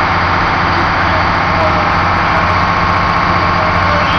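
Small boat's motor running steadily under way: a constant low drone with a steady higher whine over it.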